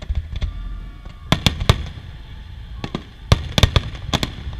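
Aerial firework shells bursting in a series of sharp bangs over a low rumble: a cluster of three about a second in, then a denser cluster of loud bangs in the last second and a half.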